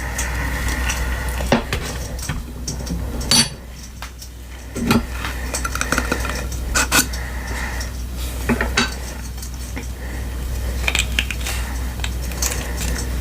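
Utensil clinking and scraping against a container while blue glitter glue slime is stirred, with irregular sharp clinks every second or two over a steady low hum.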